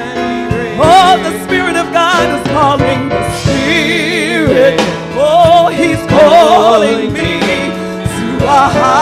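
A woman singing a gospel song with a wide vibrato, over electric guitar accompaniment.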